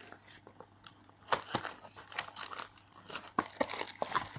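Plastic typewriter ribbon cartridges being handled: irregular clicks and rustling, with a few sharper knocks.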